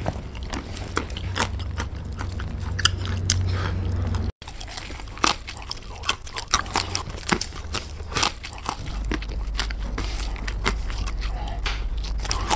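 Close-up cracking of seed or nut shells between the teeth, with chewing: a string of short, sharp crackles and crunches at irregular intervals. The sound cuts out briefly about four seconds in.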